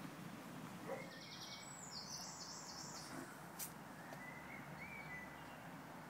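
A small songbird sings one short phrase of quick, high, repeated notes, starting about a second in and lasting about two seconds. It sits over a steady outdoor background hum, with fainter chirps later and a single sharp click a little past halfway.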